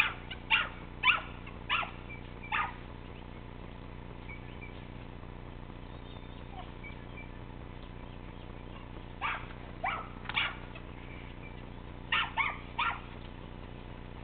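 Dog barking in short, sharp yips: a quick run of about five at the start, three more a little past the middle, and three more near the end.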